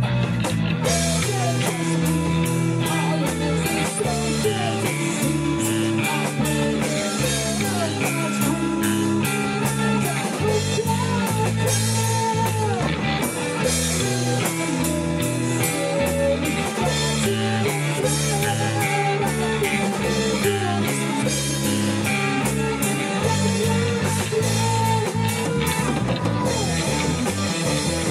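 Rock band playing a song on drum kit, electric bass and electric guitars, with regular drum hits under moving bass and guitar lines.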